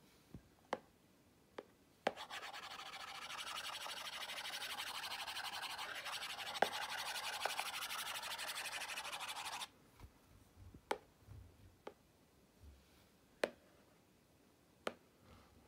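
Stylus tip scrubbed rapidly back and forth on an iPad's glass screen to erase strokes: a continuous scratchy rubbing that begins about two seconds in and stops abruptly about seven seconds later. Light taps of the pen tip on the glass come before and after it.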